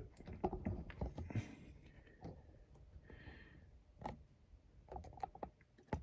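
Faint handling noise from a camera being adjusted: a few irregular light clicks and taps, with a brief soft rustle about three seconds in.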